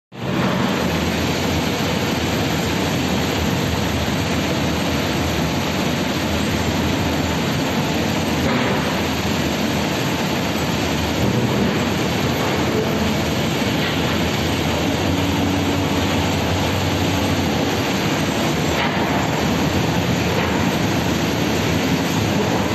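Steady machine noise of a coated-sand foundry molding line running, its flasks carried along the conveyor track.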